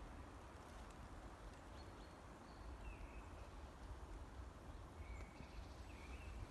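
Faint spring-forest ambience: a few short, high bird chirps, about four scattered through, over a low rumble.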